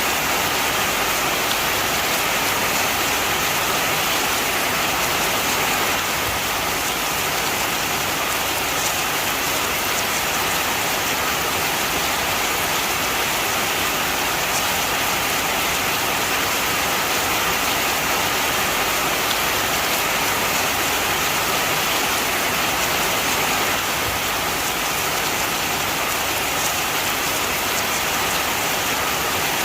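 Heavy rain falling steadily, an even hiss of many drops striking a surface with no let-up.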